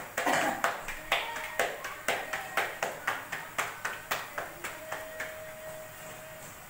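Roti dough being slapped back and forth between the palms to flatten it by hand, a steady rhythm of about two slaps a second that stops about five seconds in. A faint steady tone follows for a second or so.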